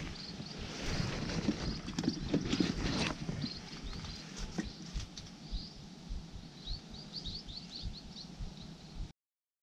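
Rustling and knocking from handling among dry palm fronds, loudest in the first few seconds, while small birds chirp throughout, with a quick run of chirps near the end. The sound cuts off suddenly just before the end.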